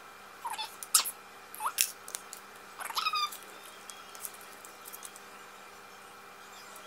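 A household pet gives about four short, squeaky calls in the first three seconds. Light clicks come from a medicine vial and its small wrapper being handled.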